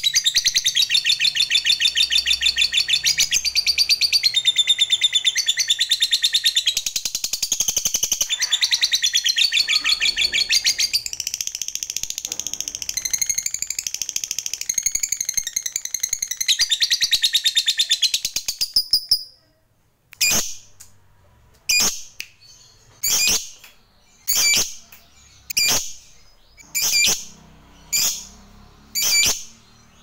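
Lovebird's long 'ngekek' chatter: a fast, unbroken rattling trill of high notes that runs for about nineteen seconds and stops abruptly. It is followed by short, sharp single chirps, about one every second and a half.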